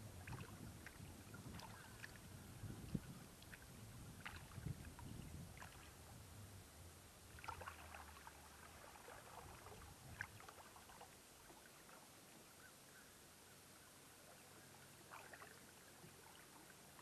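Faint sounds of a kayak on calm water: scattered light taps and knocks, with a low rumble over the first several seconds that fades out.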